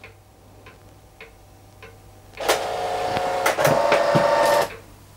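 IBM PC Convertible printer printing a single line of text: a run of about two seconds of mechanical printing that starts just before halfway and stops sharply, after a few faint clicks. It stops after one line instead of printing the rest of the file.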